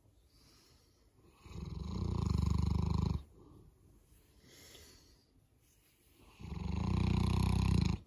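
Boerboel snoring in deep sleep: two loud, long snores of about a second and a half each, the first about a second and a half in and the second near the end, with a softer breath between them.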